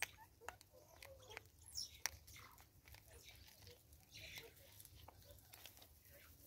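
Faint scattered clicks and rustles of a vervet monkey rummaging in a cut-off plastic bottle of birdseed and picking up the seed.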